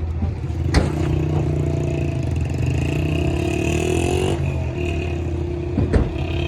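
A motor vehicle's engine running steadily. Its pitch rises between about three and four seconds in, then drops back, with a sharp clack about a second in and another near the end.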